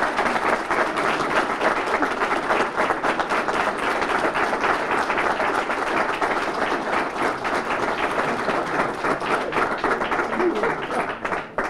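Audience applauding: a long, steady round of many hands clapping that stops abruptly at the very end.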